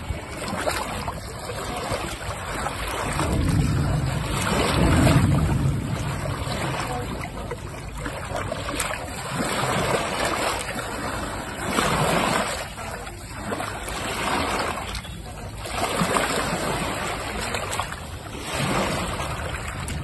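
Waves on the Ganges washing and breaking at the shoreline in repeated surges every two to three seconds. Wind rumbles on the microphone, heaviest a few seconds in.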